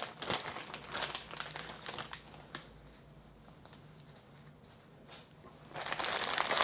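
Plastic zip-top bag rustling and crinkling as it is handled, in scattered bursts for the first couple of seconds, then quieter, with denser, louder crinkling starting near the end.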